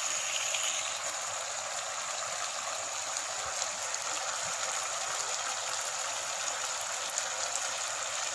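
Chicken simmering and sizzling in a thick, reducing sauce in a non-stick frying pan, a steady bubbling hiss, with a thin steady high tone over it.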